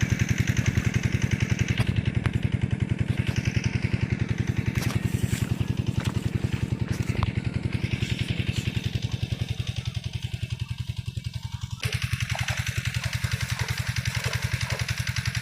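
A small engine running steadily with an even, rapid pulsing beat. About three-quarters of the way through, the background hiss changes abruptly.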